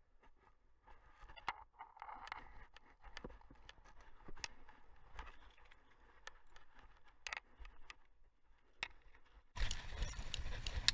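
Faint scraping, rustling and irregular sharp ticks of footsteps and gear handling close to a body-worn camera. About nine and a half seconds in, a much louder, steady rushing noise starts suddenly, with clicks through it.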